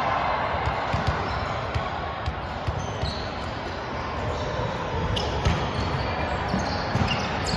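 Irregular ball thuds and hits echoing through a large indoor sports hall during a volleyball rally, over a low wash of hall noise.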